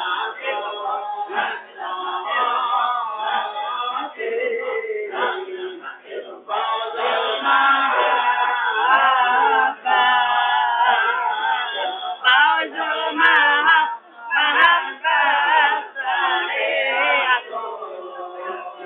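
Many men's voices chanting a devotional nasyid together, unaccompanied, in wavering drawn-out phrases with short breaks for breath between them.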